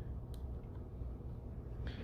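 Low steady background hum, with a single faint click about a third of a second in.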